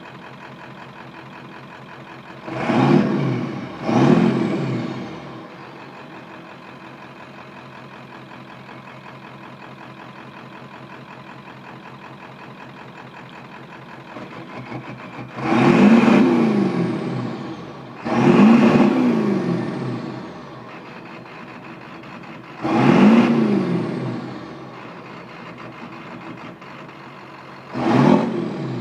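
Lifted Ford F-250 mud truck's 7.3-litre diesel V8 idling through tall bed-mounted exhaust stacks and revved hard six times: two quick revs a few seconds in, three more in the middle and one near the end. Each rev climbs in pitch and falls back to idle.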